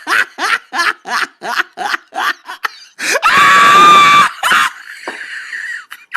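A person laughing hysterically in rapid short bursts, breaking about three seconds in into a loud, high-pitched scream that holds for about a second before trailing off into more laughter.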